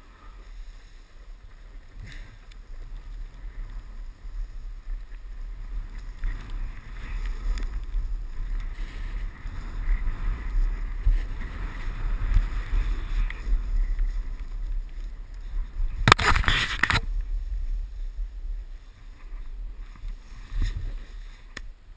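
Wind rumbling over a moving action camera's microphone during a fast run down a ski slope, with a hiss of edges scraping over packed snow that builds through the middle. About three-quarters of the way through there is one loud, rough burst lasting about a second.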